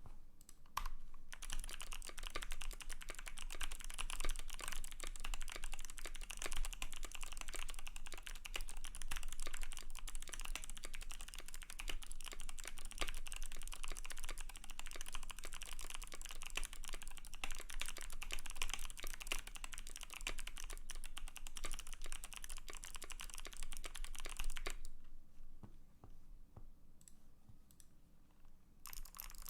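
Fast continuous typing on a custom KBD75 v3.1 mechanical keyboard with lubed Kailh Speed Bronze switches, a brass plate and ABS keycaps. The typing stops about 25 seconds in, leaving a few isolated keystrokes, and picks up again near the end.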